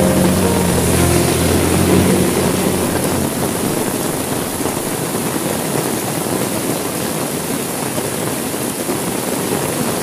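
Heavy rain falling steadily, a dense even hiss. Soft held music notes and a low hum sound over it for the first few seconds, then fade out, leaving only the rain.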